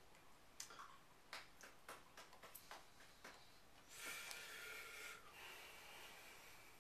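Soft clicks and taps of hands and fingers meeting while signing in sign language, scattered irregularly through near silence, with a breath-like hiss lasting about a second around four seconds in.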